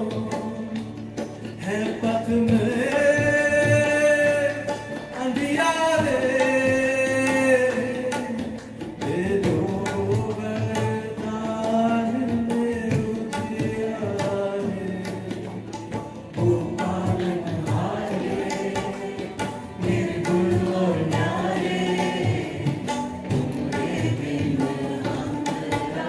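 Live Indian devotional song in a bhajan–qawwali blend: voices sing long held, wavering notes over harmonium, acoustic guitar and tabla.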